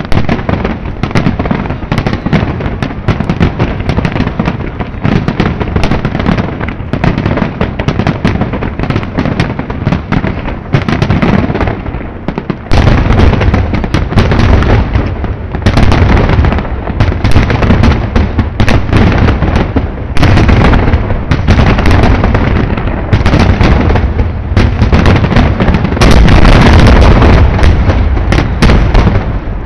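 Finale barrage of aerial firework shells bursting in rapid, overlapping bangs. About halfway through the barrage grows louder and denser, and it is heaviest near the end.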